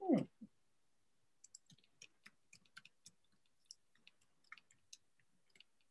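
A short falling voice sound at the very start, then faint, scattered clicks, about a dozen irregular ticks over the next few seconds, in a quiet room.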